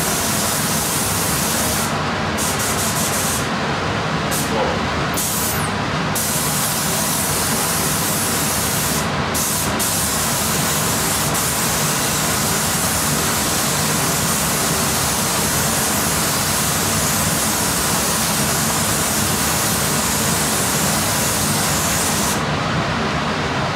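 Compressed-air spray gun hissing as clear coat is sprayed onto a panel. It comes in short bursts over the first ten seconds, then runs steadily until it stops near the end. Under it is the steady rush of the paint booth's exhaust fan.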